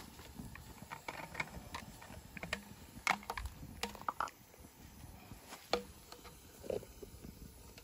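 Scattered, irregular light clicks and knocks: a campfire crackling under a lidded pot, with small clinks of cups and a spoon being handled beside it. The sharpest knocks come about three seconds in and again near six seconds.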